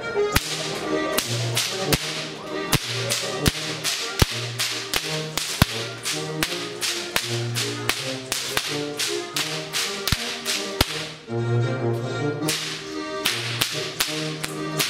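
Schuhplattler dancers slapping their thighs, knees and shoe soles in quick, sharp rhythmic slaps, several a second, over brass oom-pah band music with a steady alternating bass. The slapping pauses briefly just after the middle, then picks up again.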